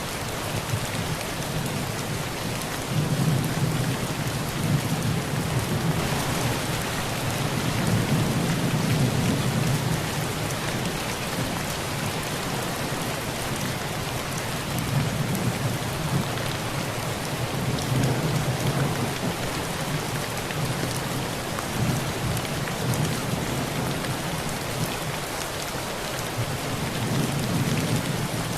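Heavy rain pouring steadily on a tin roof, with low rolls of thunder swelling and fading several times under it.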